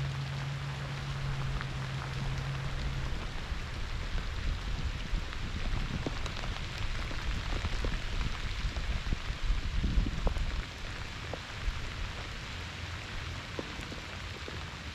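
Pouring rain falling steadily, with low rumbling on the microphone that swells about six to ten seconds in.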